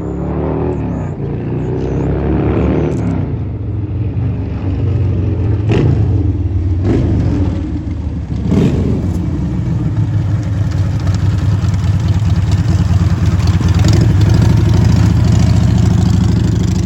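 Harley-Davidson bagger's V-twin engine running loud, revving up and down over the first few seconds and then holding a steady, deep run, with a few sharp knocks in the middle.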